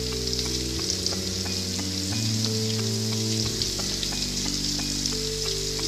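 Boiled baby potatoes frying in hot mustard oil in a kadai, sizzling steadily with many small crackles.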